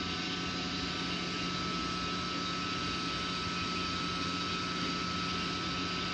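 30 hp pump's electric motor running steadily: an even whir with a low hum and a faint high whine that stay constant throughout.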